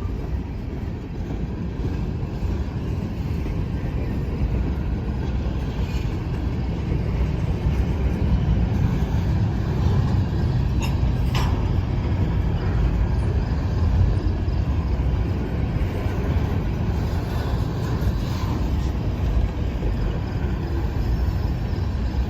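Freight cars of a Norfolk Southern manifest train rolling past slowly as it slows down: a steady low rumble, with a short sharp sound about halfway through.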